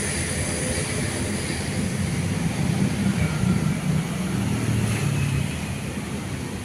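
Motor scooter engine passing close on the road, swelling about three to four seconds in over a steady low traffic rumble.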